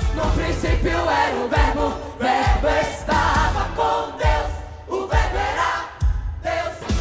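Choir singing over musical accompaniment with a steady low beat.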